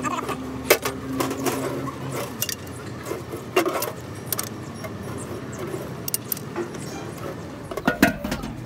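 Steel hand tools clinking against the truck differential's pinion carrier and its bolts as a socket and steel bar are worked on them. A scatter of sharp metallic clinks, the loudest about a second in and near the end.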